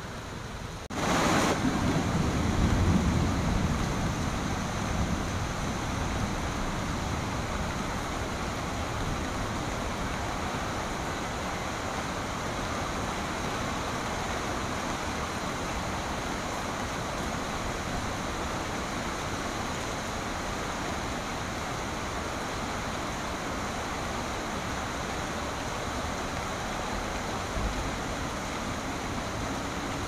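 Steady rain and wind through trees, an even hiss. About a second in the sound jumps up suddenly, with a low rumble that fades over a few seconds before settling back into the steady rain.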